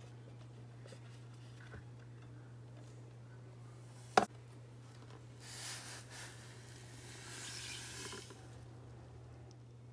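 Dry granules, yeast and then sugar, poured into a stainless steel mixing bowl, heard as two short stretches of soft hissing patter. A single sharp knock comes about four seconds in, and a steady low hum runs underneath.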